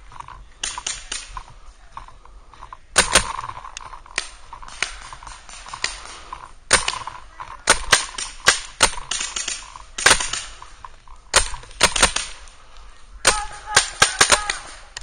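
Paintball markers firing: scattered single shots and quick strings of sharp pops, including a close pair about three seconds in and a rapid burst of four or five shots near the end.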